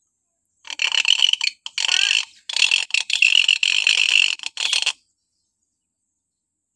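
Hill myna screeching shrilly in a run of several harsh bursts lasting about four seconds, then stopping.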